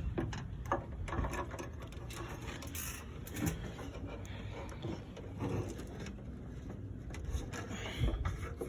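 Scattered light clicks and knocks of small parts being handled and fitted, over a low steady rumble, during work on a car's fuel filler door lock actuator.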